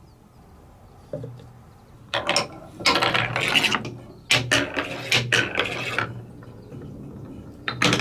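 Colourful balls running down TrixTrack wave-slope plastic track pieces: a single click about a second in, then bursts of rapid clicking and rattling from about two to six seconds in, dying away, with one more click near the end.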